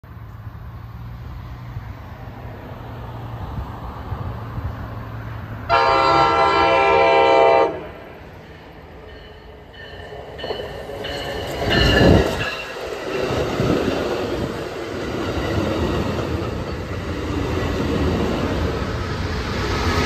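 An Amtrak passenger train approaching led by a cab car, its rumble building. About six seconds in, the cab car's horn sounds one loud blast of about two seconds. Around twelve seconds in, the train rushes up alongside, and the bi-level cars' wheels rumble and clack over the rails as they roll past.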